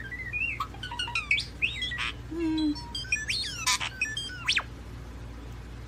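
European starling singing: a rapid, varied run of whistles, clicks, chirps and sliding notes that stops about four and a half seconds in. A low steady hum runs underneath.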